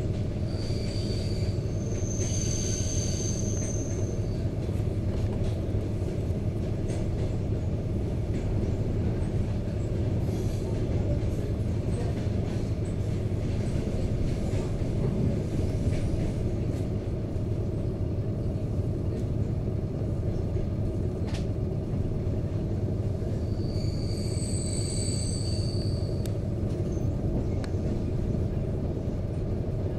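ED4MK electric multiple unit running along the track, heard from inside the carriage: a steady low rumble of wheels and running gear. A thin, high wheel squeal comes in briefly near the start and again near the end.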